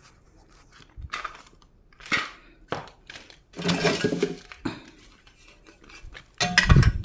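Metal tools and pipe fittings being handled, clinking and knocking against each other in a string of separate knocks, with a longer clatter in the middle and a louder one near the end.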